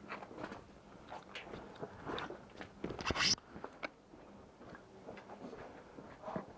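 Irregular crunching and rustling of a player's footsteps and gear while moving, with one louder scrape about three seconds in.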